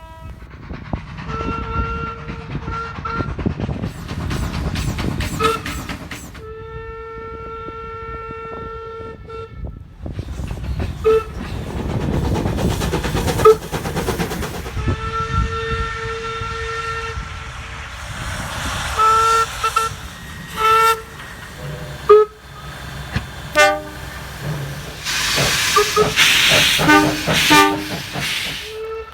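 Train horns sounding in a string of short clips: long held blasts and quick short toots, each a chord of several steady tones, over the low rumble of passing trains.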